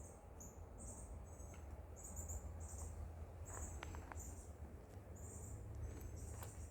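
Insects chirping in short, high-pitched trills that repeat a couple of times a second, over a steady low rumble, with a few faint clicks about three and a half seconds in.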